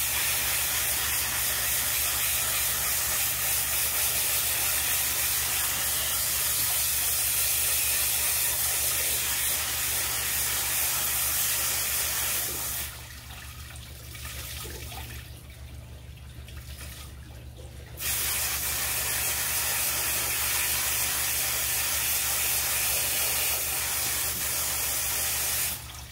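Garden hose spray nozzle jetting water onto a fish-tank filter sponge, a steady hiss as brown algae-laden water is rinsed out. The spray stops for about five seconds midway while the sponge is squeezed out, then starts again and cuts off just before the end.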